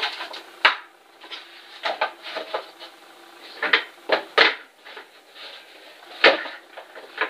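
White molded packaging tray and cardboard box of a mini drone being handled: a string of irregular clacks and knocks with rustling between them, the sharpest about two-thirds of a second in, around four seconds in, and a little past six seconds.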